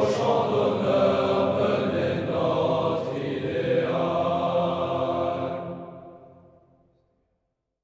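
Choir singing a French military-school promotion song (chant de promotion), in sustained sung chords. The last held chord fades away about six to seven seconds in.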